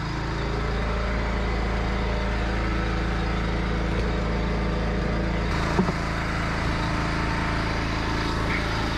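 Pressure washer's gas engine running steadily, with a brief knock about six seconds in.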